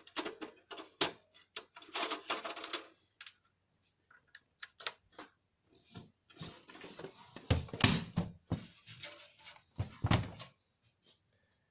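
Irregular clicks, knocks and short scraping rustles from parts being handled and fitted inside a desktop computer case.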